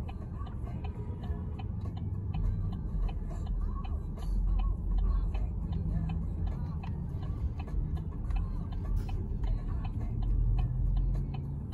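Car's turn-signal indicator ticking steadily, a few clicks a second, while the car waits to turn left. A low engine and cabin rumble runs underneath.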